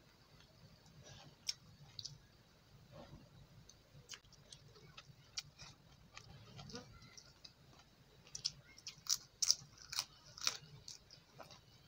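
A person eating with the hand from a metal plate: fingers working rice and then chewing, heard as scattered sharp wet clicks that come thicker and louder in the last few seconds.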